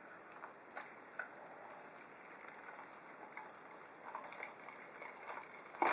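Latex prosthetic snout being peeled away from the skin: faint sticky crackles and small ticks as the adhesive lets go, with a louder crackle near the end.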